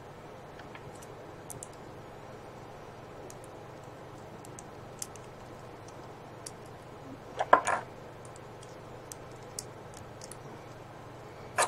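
Small plastic figure parts being handled and pressed together: scattered light clicks and ticks, with a louder quick run of plastic clicks about seven and a half seconds in.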